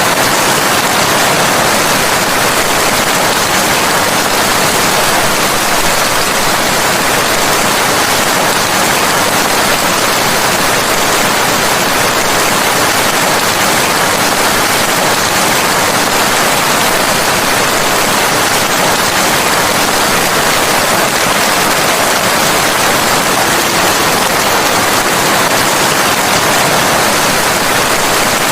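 Steady heavy rain, an even hiss with no breaks or distinct drops.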